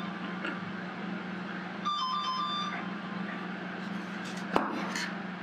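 A short electronic chiming tune of a few stepped high notes, heard about two seconds in, over a steady low hum. A single sharp click about four and a half seconds in.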